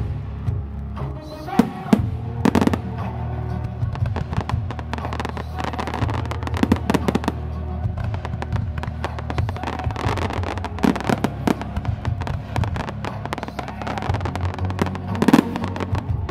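Fireworks bursting, with many sharp bangs and crackles. The biggest bangs come about two seconds in and again near the end. Loud music with a steady low bass plays under them.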